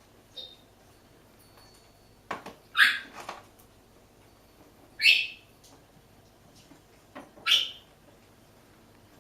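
Congo African grey parrot calling: three loud, short squawks about two and a half seconds apart, with a fainter chirp near the start.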